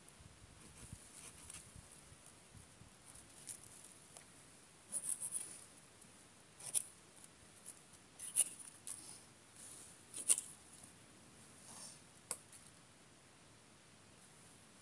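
Side twigs being cut off a thin fallen branch with a small hand tool: a handful of short, sharp snips, the first cluster about five seconds in and then single cuts a second or two apart.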